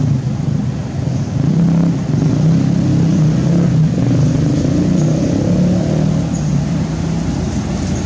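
A motor vehicle's engine running steadily: a loud, low, even hum that grows a little louder about two seconds in.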